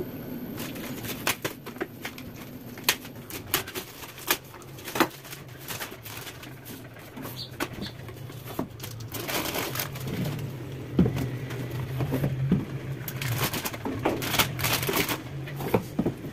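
Plastic food packets rustling and crinkling, with light knocks and thuds as packets and cardboard milk cartons are set and slid onto a cupboard shelf. A low steady hum comes in about ten seconds in.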